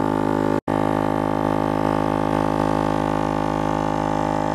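Exitrax 160 LPM 12-volt single-cylinder air compressor running with a steady, even hum while it pumps up a tyre. The sound cuts out for an instant about half a second in.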